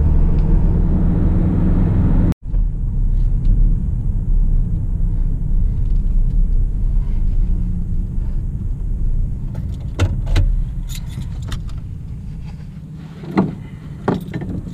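Low rumble of a car's engine and road noise heard inside the cabin, breaking off suddenly a couple of seconds in and then going on as the car rolls slowly. A few light clicks and rattles come near the end.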